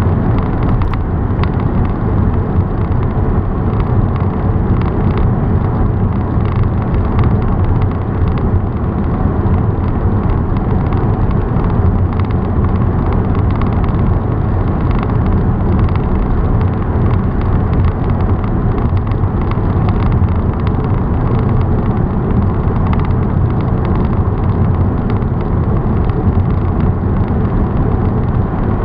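Steady road and engine noise of a car driving along a highway, heard from inside the cabin, a low, even rumble with no change throughout.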